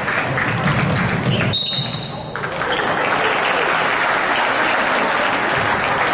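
Crowd noise of a basketball game in a gym: many voices, a basketball bouncing, and a brief shrill high sound about one and a half seconds in, after which the crowd din picks up again.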